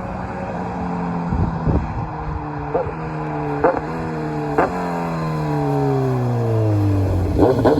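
Motorcycle engine, a Kawasaki Ninja 1000SX with a Lextek SP11C exhaust, its revs falling steadily as it slows, with a few sharp pops from the exhaust. Near the end the exhaust sound picks up again with a quick run of louder bursts.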